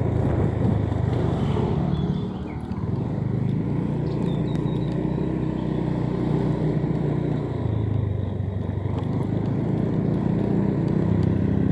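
A motorcycle engine running under way at low speed. It eases off briefly about two seconds in and picks up again, and its note rises a little about eight seconds in.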